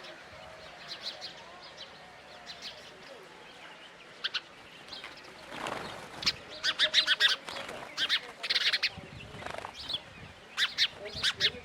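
Small birds chirping: quick, high-pitched chirps in bursts, loudest in a run in the middle and another shorter run near the end.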